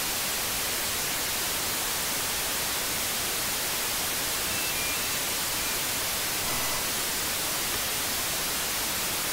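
Steady hiss of static from a HackRF software-defined radio demodulating narrowband FM on an empty 5.8 GHz cordless-phone channel, with the squelch open and no signal present.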